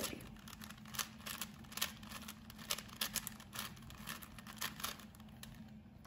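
Plastic 4x4 Rubik's cube being turned by hand: a run of soft, irregular clicks and clacks as its layers are twisted.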